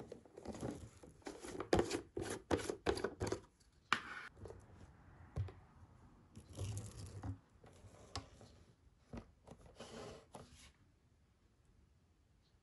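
Plastic jar of dry breaded kushikatsu snack sticks being opened and rummaged through by hand: a quick run of clicks and crackles, then scattered scraping rustles as one stick is drawn out, falling quiet about eleven seconds in.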